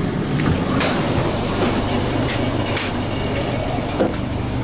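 ET2M electric train heard from inside the carriages: a steady rumble and low hum with several sharp clanks and rattles, the loudest about four seconds in.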